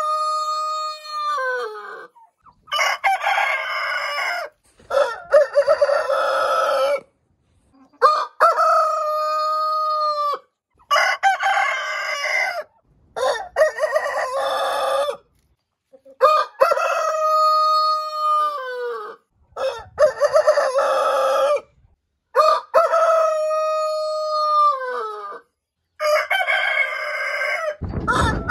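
Roosters crowing, about ten crows one after another, each about two seconds long with short silent gaps between. Some crows are clear held notes that drop away at the end, others harsher and raspier.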